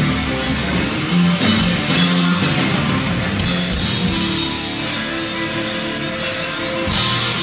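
Rock band playing live, with electric guitar to the fore and drums behind it.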